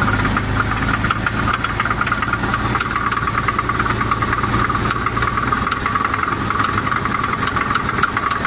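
Chevrolet S10 4x4 engine running steadily with a rapid, even knocking. The owner takes it for a rod knock, though a friend thinks it is not a rod.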